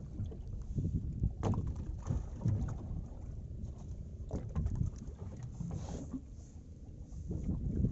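Water lapping against the hull of a small boat drifting at sea, with an uneven low rumble and a few sharp knocks.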